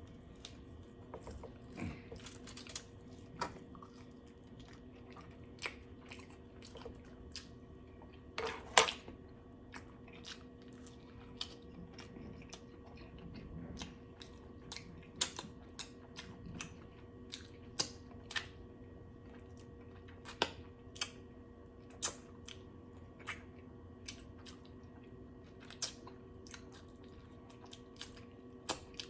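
Close-miked eating sounds: chewing with many sharp lip smacks and mouth clicks, one every second or so, the loudest about nine seconds in, over a faint steady hum.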